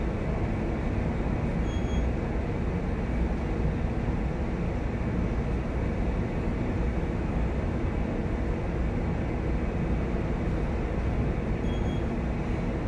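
Steady low rumble and hum of a large chemical tanker under way, from its engine and machinery, under an even wash of noise.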